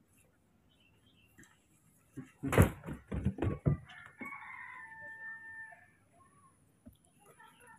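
A rooster crowing, ending in a long held note, just after a quick run of loud knocks about two and a half seconds in.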